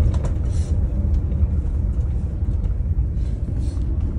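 Daewoo FX116 coach heard from inside while driving: a steady low engine and road rumble, with two brief faint hisses, about half a second in and again about three and a half seconds in.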